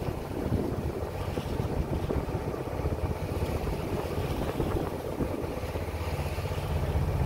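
Wind on the microphone and water rushing past the hull of a sailing ketch under way at sea, a steady gusty rush with a low hum underneath.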